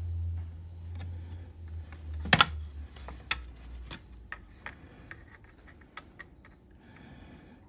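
Small clicks and taps of parts and tools being handled on a workbench, with one louder clack about two and a half seconds in. A low hum fades out over the first few seconds.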